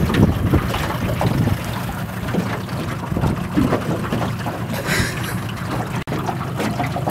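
Wind buffeting the microphone with water noise from a small boat under way, a steady rough rumble, with a brief dropout about six seconds in.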